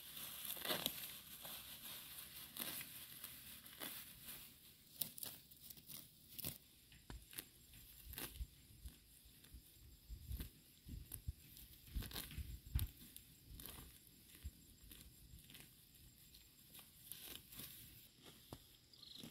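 Weeds and grass being pulled up by hand, with faint, irregular tearing and rustling. A few dull low thumps come in about ten to thirteen seconds in.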